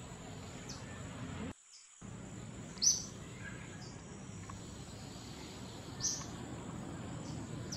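Steady high-pitched insect trill with short high chirps about every second, the loudest about three and six seconds in. The sound cuts out for about half a second about a second and a half in.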